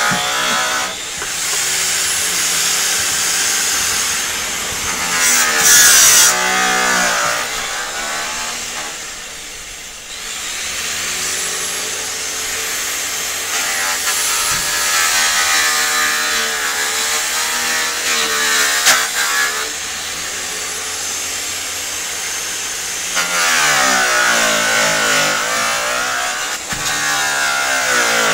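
Handheld electric polisher running against a semi-trailer's aluminium front panel, its motor whine rising and falling in pitch as it loads up and frees under pressure. It eases off and goes quieter about nine to ten seconds in.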